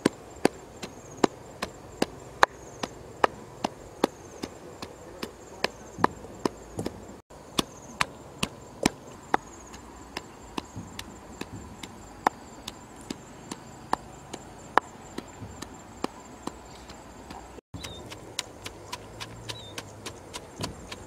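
Wooden pestle pounding chili paste in a mortar by hand: sharp wooden knocks about two to three a second, some strokes harder than others.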